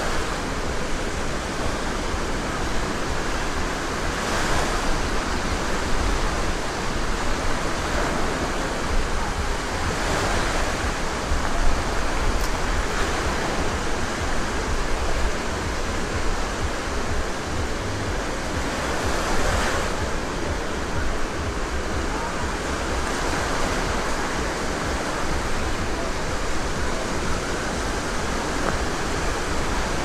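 Small sea waves breaking and washing up a sandy shore, a steady surf that swells louder a few times as bigger waves break.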